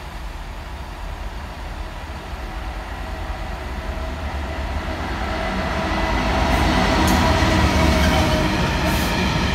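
Freightliner Class 66 diesel locomotive approaching and passing with a train of hopper wagons. The engine's drone grows steadily louder to its loudest about seven seconds in, then the wagons rumble by with a few sharp wheel clicks.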